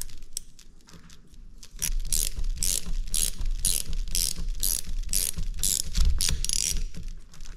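Ratcheting wrench clicking in short repeated sweeps, about two a second, as it tightens the 16 mm locking nut on a steering gearbox's lash-adjuster screw, locking in the gear-lash setting. The clicking starts about two seconds in and stops shortly before the end.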